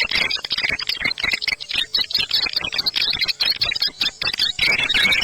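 Swiftlet lure sound call: a dense, unbroken chatter of rapid, high chirps and clicks from many swiftlets, the kind of recording played in swiftlet houses to draw the birds in to roost and nest.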